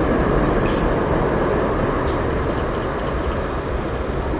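Boeing 767-300F's twin jet engines at climb-out thrust: a loud, steady roar from the departing jet, fading slowly as it climbs away.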